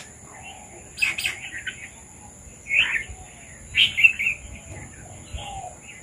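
Red-vented bulbuls calling: short bursts of chirping notes about a second in, just before three seconds and again around four seconds. A steady high-pitched whine runs underneath, and fainter lower notes repeat near the end.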